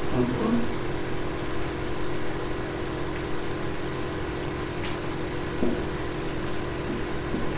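Steady low background hum made of several unchanging tones, with a sharp click about five seconds in.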